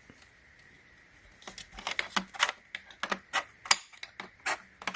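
Clips of a socket organizer rail clicking and rattling as they are handled: quiet at first, then a run of irregular sharp clicks, several a second, from about a second and a half in.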